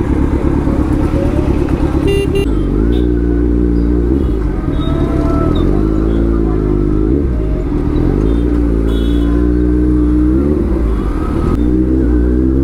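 Kawasaki Z900's inline-four engine revving up and easing back several times, its pitch rising and falling, over a steady low rumble.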